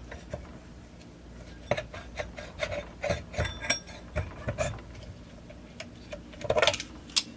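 Chainsaw clutch drum being worked up and down over its needle bearing onto the crankshaft: a string of irregular small metal clicks and clinks, some ringing briefly, with a quick rattle of clicks near the end as it seats.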